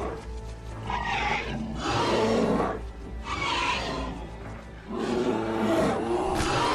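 Animal roars and snarls from a fight between a reconstructed entelodont (Dinohyus) and bear-dogs, in about three loud bouts, with dramatic music underneath.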